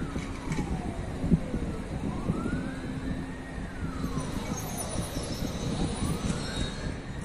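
Emergency vehicle siren wailing, its pitch slowly rising and falling about every three and a half seconds, over a low rumble. A single sharp knock sounds about a second in.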